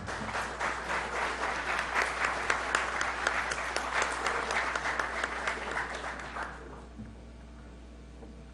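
Audience applauding, which dies away about six and a half seconds in and leaves only a faint steady low hum.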